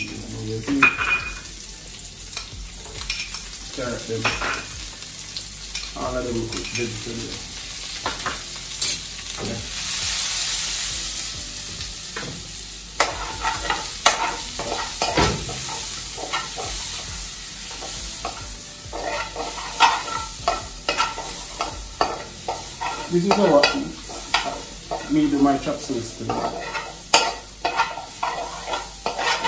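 Sliced onions and vegetables sizzling in a hot wok while a utensil stirs them, with frequent clicks, knocks and scrapes against the pan.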